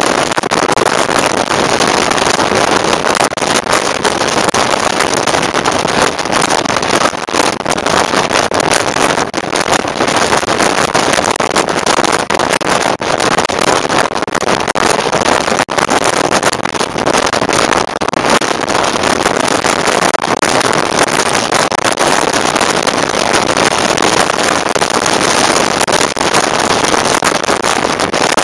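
Steady wind and road noise on a motorcycle-mounted camera riding at speed, a dense rush with no clear engine tone standing out.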